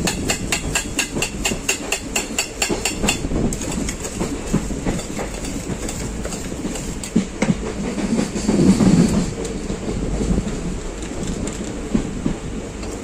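Steel spoon rattling rhythmically inside a steel tin, about five strokes a second, as puffed rice is tossed and mixed for jhalmuri; it stops about three and a half seconds in. Under it runs the steady noise of a moving train carriage, with a louder low rumble about eight to nine seconds in.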